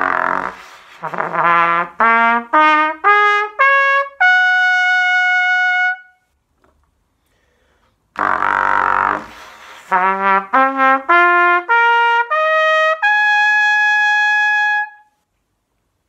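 Trumpet playing two rising phrases of a pedal-register exercise. Each opens with a rough, buzzy double pedal note, then steps up through short notes in perfect fourths to a long held high note, the second phrase starting and ending a little higher than the first.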